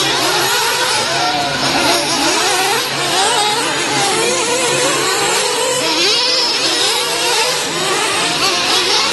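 Several 1/8-scale nitro RC truggies' small two-stroke glow engines whine as they rev up and down around the track. Their pitches keep rising and falling and overlap one another without a break.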